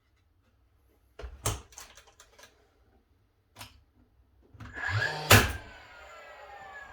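A few light knocks and clicks, then a small motor spins up and there is one loud clack about five seconds in, after which the motor winds down with a slowly falling whine.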